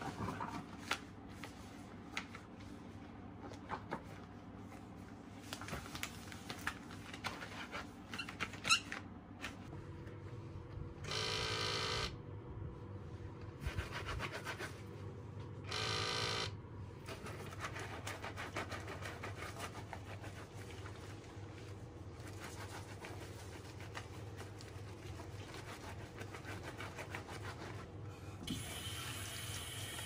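Rubber dishwashing gloves rustling and clicking as they are pulled on. Then an automatic foam soap dispenser's small pump whirs twice, about a second each, around the middle. Near the end a kitchen tap starts running.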